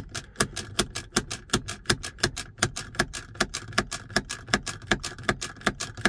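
Driver's seatbelt buckle release button in a 2023 Subaru Forester, pressed over and over with the latch plate held in: rapid, even plastic clicking, about three clicks a second, with a faint steady high tone behind it. This is the repeated clicking that switches off the seatbelt reminder chime.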